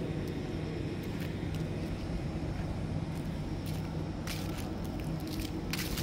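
Footsteps crunching on dry fallen leaves: a few short, crisp crackles in the second half, over a steady low hum from the surroundings.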